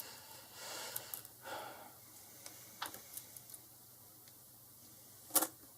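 A person breathing out heavily twice, like a sigh, then faint scattered ticks and one sharper click near the end.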